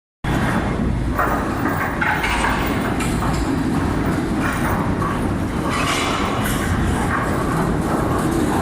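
Industrial rotary dryer running: a steady low rumble with irregular rattling and clatter over it.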